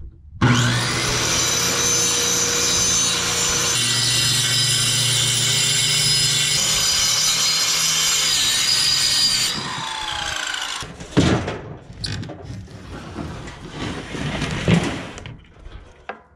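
Corded circular saw cutting through a sheet of OSB. The motor starts about half a second in and runs steadily under load for about nine seconds, then winds down with a falling pitch. Several seconds of uneven, intermittent sawing noise follow, stopping about a second before the end.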